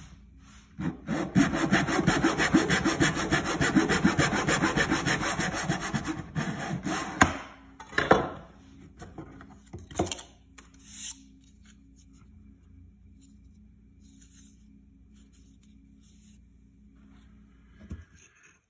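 Fine-toothed fret saw cutting a fret slot across a wooden ukulele fretboard in a slotting miter box, with fast back-and-forth strokes for about six seconds before it stops. A few short knocks follow.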